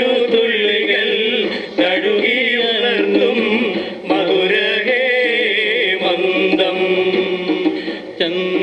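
Male voices singing a slow song line in long, wavering held phrases, accompanied by a harmonium with a steady low drone.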